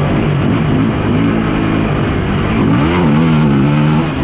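Off-road vehicle engine running under way, heard close from the vehicle carrying the camera, over a steady rush of noise. Its pitch steps down a little about a second in and rises then falls back around three seconds in as the throttle changes.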